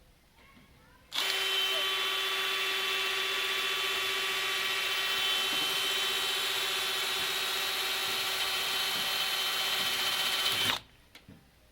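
A power tool starts about a second in, runs steadily with a constant whine for about ten seconds while cutting into the hollow porch column, and then cuts off suddenly.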